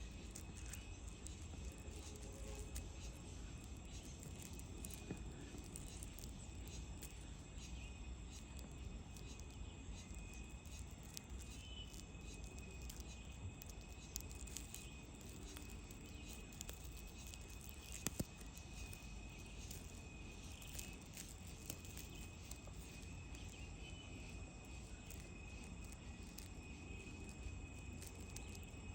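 Ant sound effect, ants recorded close and amplified: faint crackling and scattered small clicks over a low rumble and a thin steady high tone, with one sharper click past the middle.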